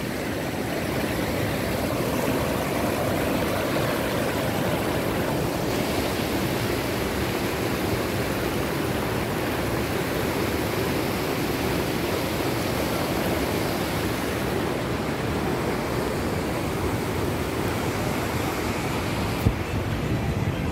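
Small rocky hill river, the Chel, rushing over boulders: a steady rush of fast-running water that shifts a little in tone a couple of times.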